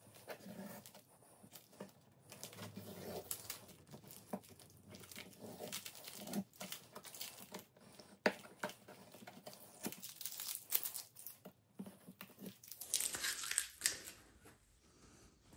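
Irregular crinkling and tearing handling noise with scattered sharp clicks, growing denser and brighter near the end.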